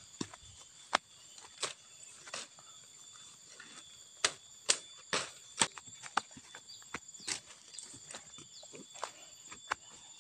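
Footsteps tramping through leaf litter and undergrowth, an irregular run of sharp steps and rustles, over a steady high-pitched insect drone.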